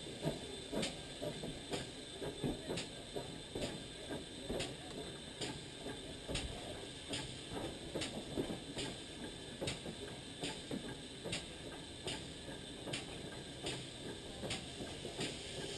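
GWR pannier tank steam locomotive running slowly, with a steady beat about twice a second over the rumble of wheels on the rails.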